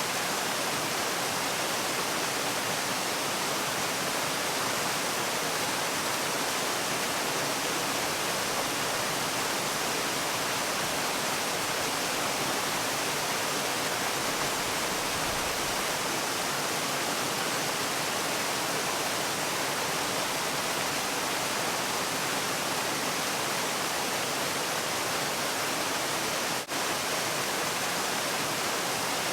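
Steady rush of falling water, an even hiss with most of its strength in the upper range. It dips for an instant once near the end.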